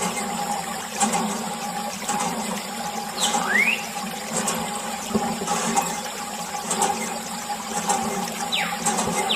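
A thin stream of water pouring and splashing onto a muddy toy tractor, a steady trickling wash. Two short whistle-like squeaks glide through it, one rising about a third of the way in and one falling near the end.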